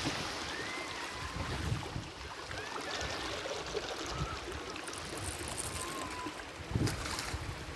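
Shallow water running and trickling over beach sand, with the wash of surf behind it. Uneven low gusts of wind buffet the microphone.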